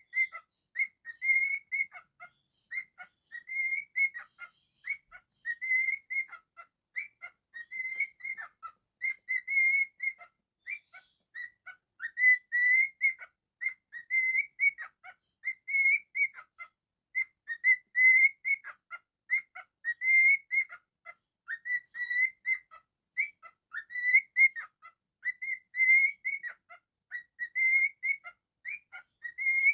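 Cockatiel whistling a tune as a long run of short, high notes in quick phrases with brief pauses between.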